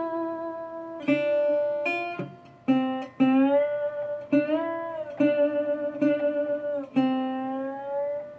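Acoustic guitar playing a slow instrumental passage: single plucked notes that ring on, several of them bending in pitch.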